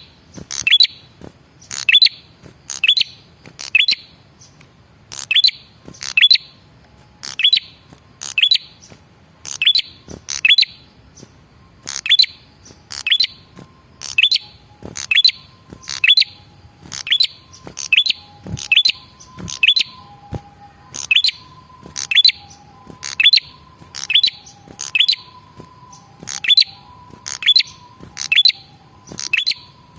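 Male prenjak kepala merah, a small Indonesian prinia-type songbird, calling over and over: loud, sharp, high chirps in quick groups about once a second. Faint, steady lower whistled notes sound in the background from a few seconds in.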